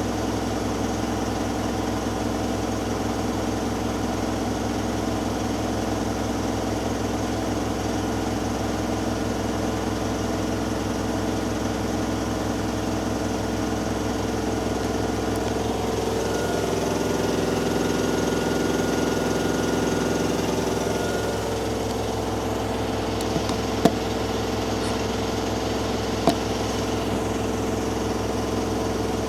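Hoover Dynamic Next washing machine in its final spin, the drum spinning at speed with a steady motor hum and whine. A little past halfway the sound swells and shifts in tone for a few seconds. Two sharp clicks come near the end.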